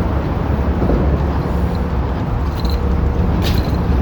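Steady low rumble of road traffic passing close by, with a few faint high ticks.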